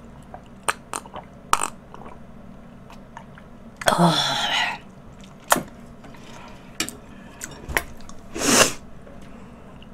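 An eater's mouth and throat noises: scattered small smacks and clicks, with two short breathy throat sounds, one about four seconds in and a sharper one about eight and a half seconds in.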